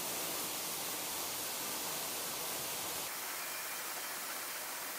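Circular sock-knitting machines running on a knitting floor: a steady, even mechanical hiss with no rhythm to pick out. About three seconds in the sound turns thinner and higher.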